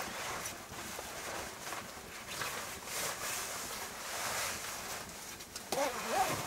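Rustling of a synthetic sleeping bag as someone gets into it and pulls it around herself, coming in swells, with a brief squeaky creak near the end.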